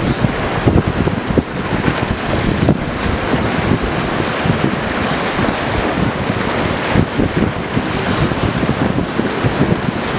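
Choppy surf washing and breaking toward the shore, with strong wind buffeting the microphone in irregular low rumbles.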